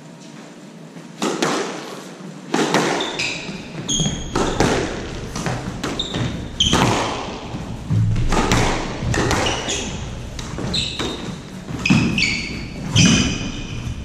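Squash rally: the ball cracks off racquets and the court walls again and again, starting about a second in, with short high squeaks of court shoes on the hardwood floor between shots.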